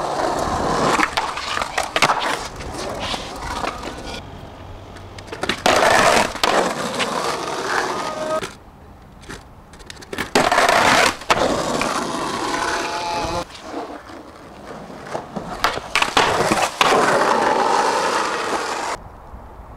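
Skateboard wheels rolling over pavement and concrete, with sharp clacks of the board popping and landing, in several short takes that cut off abruptly.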